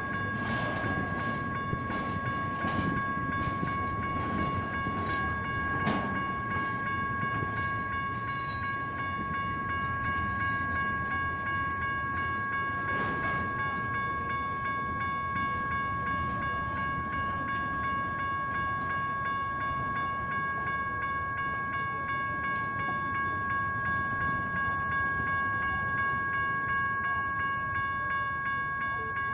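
Two General Signals Type 1 crossing bells ringing continuously, each at its own pitch, over the rumble of a BNSF double-stack intermodal train rolling past. Railcar knocks and clanks come in the first several seconds, the sharpest about six seconds in.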